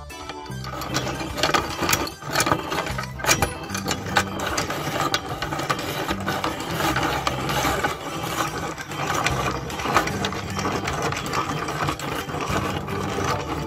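An electric meat grinder starts up about half a second in and runs steadily, its auger crushing jelly candies with a busy clicking and rattling over the motor's hum.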